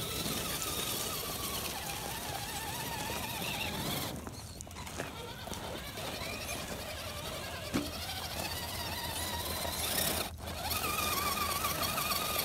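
Electric motor and gear drive of a 1/10-scale RC rock crawler whining as the truck crawls over loose dirt and rocks, the pitch wavering up and down. A single sharp click sounds about eight seconds in.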